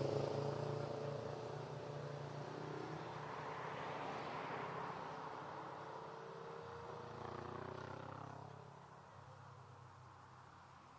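Engine noise of a large passenger aircraft fading away after it passes, a rushing noise with a steady low hum and tones that slide slowly down in pitch, dying out over the last few seconds.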